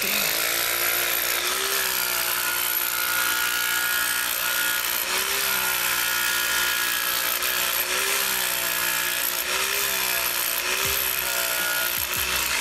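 An electric power tool working cantera stone, running steadily with a dense hiss. Its motor note sags and recovers every second or two as it is pressed into the stone.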